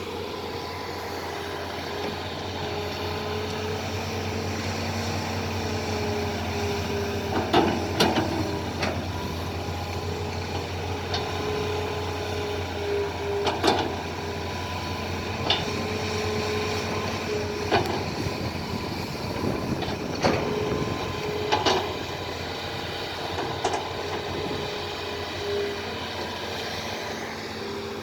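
Excavators working: steady diesel engine running with a held whine, and sharp knocks every few seconds, the loudest about a third of the way in.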